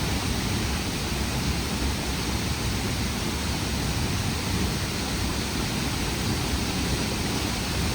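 Waterfall rushing: a steady, even roar of falling water with no change throughout.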